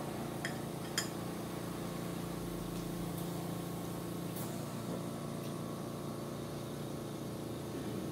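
A steady machine hum with light eating sounds over it: chewing and a few sharp clicks of a metal fork against a ceramic bowl, two of them about half a second and a second in.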